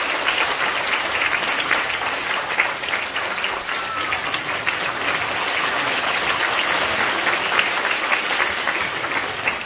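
Audience applauding, a dense steady clatter of many hands clapping that begins to taper off near the end.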